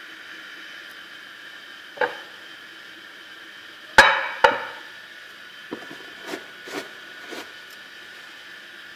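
Glass baking dish handled on a granite countertop: a knock about two seconds in, then two sharp, ringing clinks half a second apart, then a few lighter taps, over a steady hiss.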